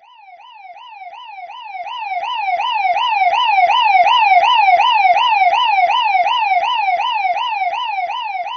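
Police car siren in a fast yelp, a wavering wail that sweeps up and down about three times a second. It grows louder over the first three seconds, then slowly eases off, as a car passing by.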